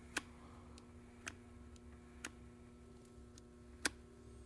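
Hot stapler plastic repair tool in use: four sharp clicks about a second apart, the last the loudest, with a few fainter ticks over a faint steady electrical hum as a heated staple is worked into the plastic.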